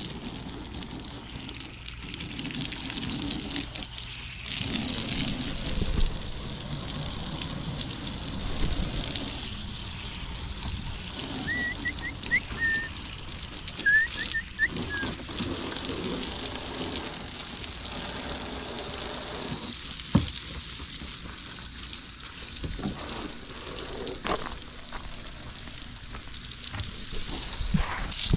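Garden hose spraying water over a boat hull, trailer and outboard motor: a steady hiss of spray with water splashing off the boat onto the grass.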